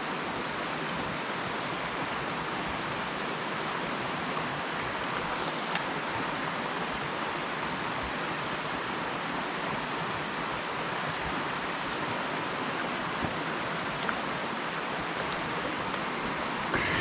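Mountain stream water rushing steadily over a shallow riffle, with a few faint clicks.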